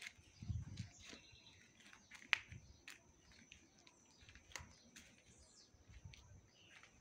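Quiet outdoor garden ambience: faint bird chirps over a steady high-pitched whine. Rustling, soft thumps and handling noise come from a phone camera being carried through dry grass and brush, with a sharp click about two seconds in.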